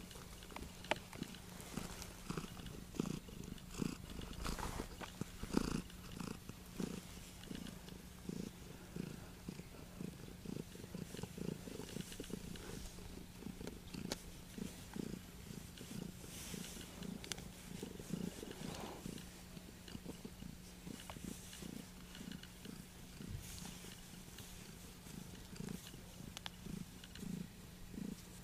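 Ginger-and-white cat purring steadily while being stroked, the purr pulsing about twice a second.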